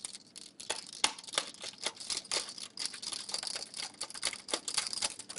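Small screwdriver driving a mounting screw into the steel drive bay of a computer case, a run of small irregular metallic clicks and scrapes as the screw turns.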